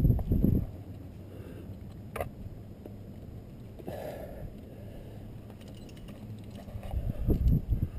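Low, irregular rumbling and rubbing noise on a helmet-mounted camera's microphone as a climber moves on the rock. It drops away after the first second and builds again near the end, with a single sharp click about two seconds in.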